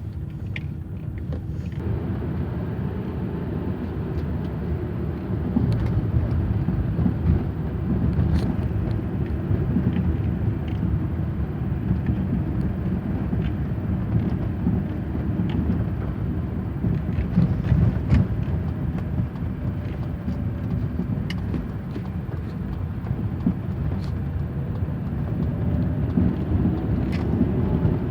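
Chevrolet Aveo driven over rough road, heard from under the hood: steady engine and road noise, with sharp knocks from the front suspension at irregular moments. The owner traces the knock to a new strut top mount.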